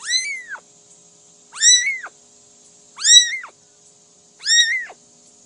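A cat meowing: four high-pitched, drawn-out meows, evenly spaced about a second and a half apart, each rising and then falling in pitch.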